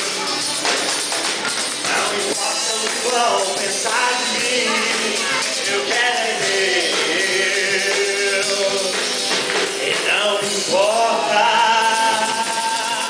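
Live worship song: a group of voices singing, accompanied by a grand piano and shaken jingling percussion.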